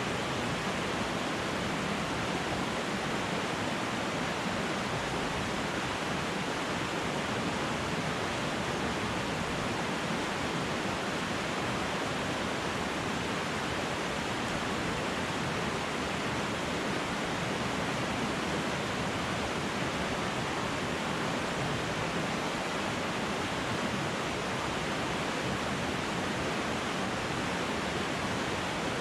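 Flowing river water, a steady rush that does not change.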